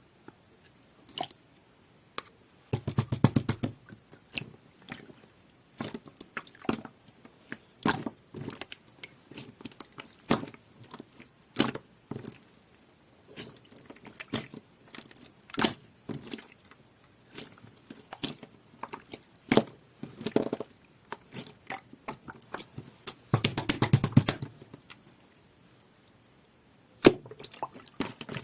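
Jelly-textured slime being squeezed and pressed by hand, giving irregular sticky pops and clicks, with dense runs of crackling about three seconds in and again near the end.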